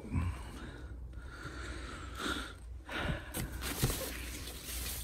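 Soft rustling of a foam packing sheet and cardboard box flaps being pulled back by hand, in a few short scuffs with a faint click or two.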